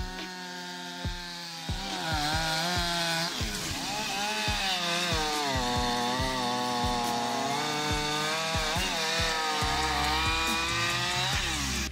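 Large two-stroke chainsaw cutting through a thick log. About two seconds in it revs up and gets louder, and its pitch sags and recovers several times as the chain works under load in the cut.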